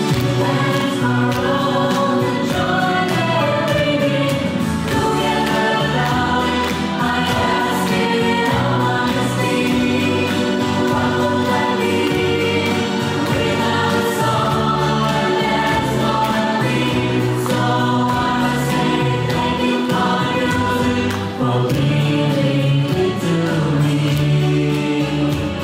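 Music with a steady beat and group singing.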